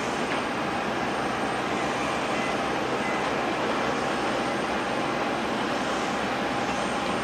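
Jet airliner engines running, a steady rushing noise with a faint steady whine.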